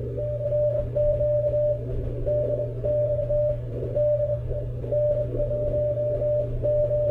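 Morse code (CW) received on an Icom IC-7300 HF transceiver: one steady tone keyed on and off in dots and dashes over receiver noise and a low hum. It is another station calling CQ and sending its call sign.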